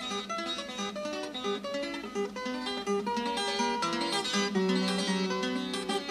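Instrumental music on a plucked acoustic guitar picking out a quick melody of short notes.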